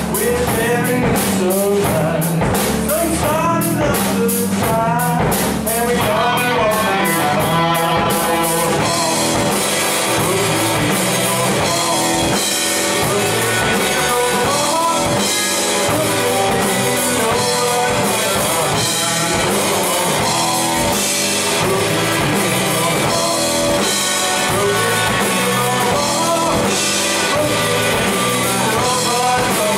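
Live rock band playing: electric guitar and drum kit with a sung vocal, the drumming shifting to a denser cymbal wash about eight seconds in.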